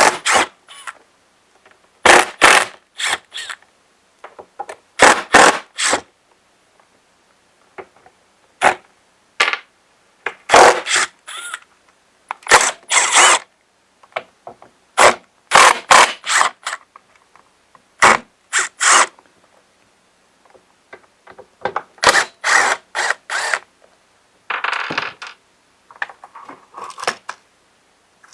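Hand tools and plastic parts clicking, knocking and scraping in short bursts of sharp clatter every few seconds as a Stihl BG85 two-stroke leaf blower is taken apart to reach its carburetor, with a brief scratchy scrape near the end.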